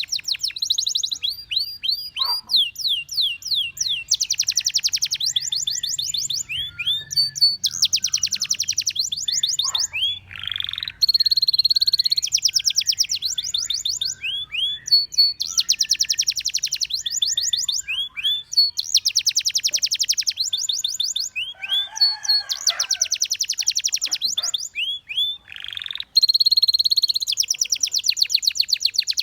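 Domestic canary singing continuously in long rolling phrases. The song alternates fast trills of rapidly repeated notes with runs of rising and falling sweeps and short held whistles, changing phrase every second or two.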